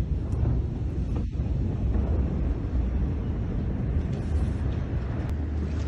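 Low, steady rumble from the Beirut port explosion, heard on a phone microphone while its cloud rises, with no sharp bang.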